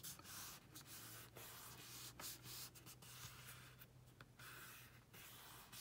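Hands smoothing and pressing black cardstock down onto a glued die-cut panel: faint papery brushing in a series of short strokes.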